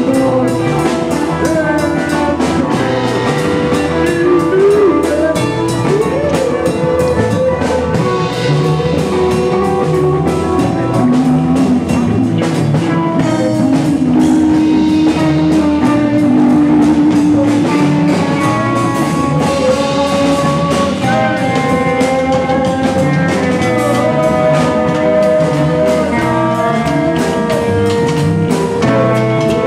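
Live improvised rock jam with electric guitars holding and bending sustained notes over bass and a steadily played drum kit with cymbals.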